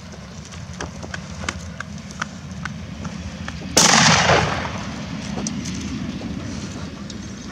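A single loud gunshot about four seconds in, sharp at the start and echoing away over about a second.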